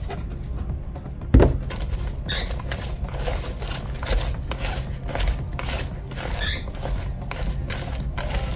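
Kitchen handling sounds: a single sharp knock about a second in, then a run of light clicks and rustles as oiled chopped red peppers are spread out on a parchment-lined baking sheet.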